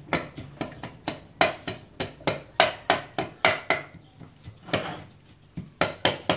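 Pestle pounding in a clay mortar: sharp knocks, roughly three a second, with a brief pause in the second half before the strokes pick up again.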